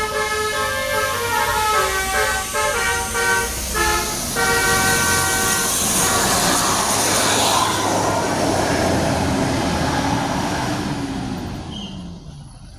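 Telolet 'basuri' musical air horn on a tour bus playing a tune of changing notes for about the first six seconds. Then the passing bus's noise, with a falling engine note, fades away near the end.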